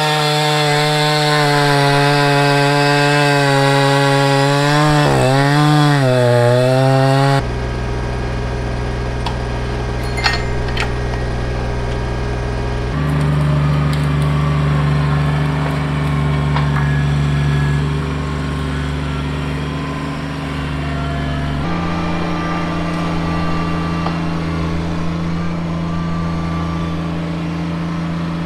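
Echo CS-590 chainsaw cutting through a log, its engine pitch dipping and rising as the chain loads in the cut. About seven seconds in it gives way to a Kubota BX23S compact tractor's three-cylinder diesel running steadily, its note shifting a couple of times as it works the grapple.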